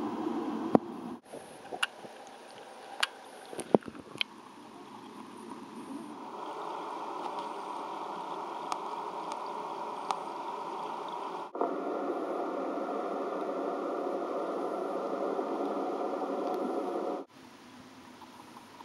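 Steady water noise in a marine touch tank, with a few sharp clicks and knocks in the first few seconds. The noise jumps in level where clips are cut together, and is louder for several seconds in the second half.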